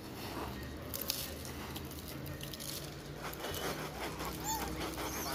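Peanuts rustling and pattering as they are poured from a cardboard box onto pavement for feeding rhesus macaques, with small clicks and scuffles. Near the end a monkey gives a few short high squeals.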